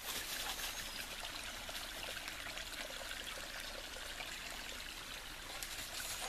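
Shallow woodland creek trickling over rocks, a steady even rush of water.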